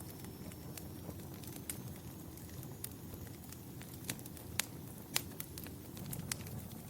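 Wood fire burning in a fireplace: a steady low rumble of flames with scattered sharp crackles and pops, the two loudest pops about two-thirds of the way in.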